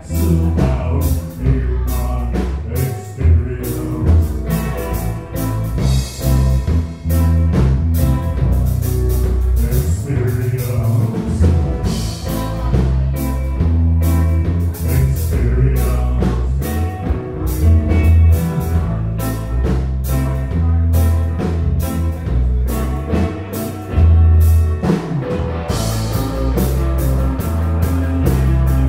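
Live rock trio playing: drum kit, bass guitar and amplified electric guitar, loud and steady with a heavy bass line and a regular drum beat.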